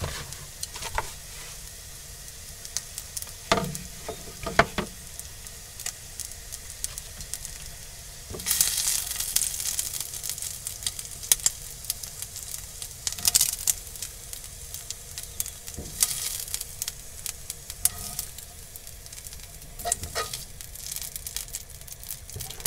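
Chicken pieces sizzling in a frying pan that is still on the heat, a steady hiss that swells louder about eight seconds in. Sharp clicks and knocks of tongs and a takeaway box being handled punctuate it.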